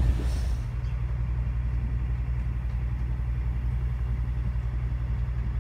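Sailboat's inboard engine running steadily under way, a low even drone.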